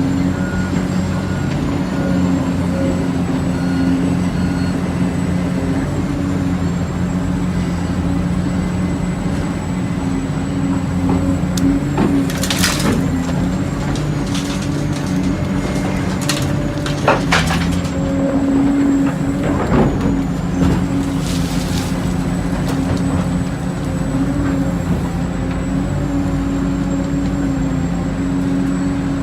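Diesel engine of heavy construction machinery running steadily, with a held high whine over it and several short noisy bursts about halfway through.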